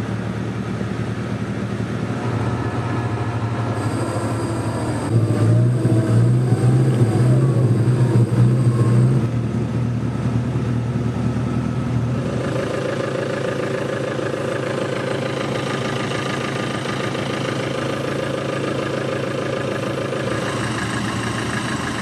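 Off-road 4x4 engine running under load, louder for a few seconds about five seconds in, with a steady mechanical whine joining it from about twelve seconds in until near the end.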